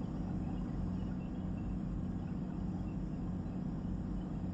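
Steady low drone of a boat's engine under way, heard from on board, over a hiss of water and wind.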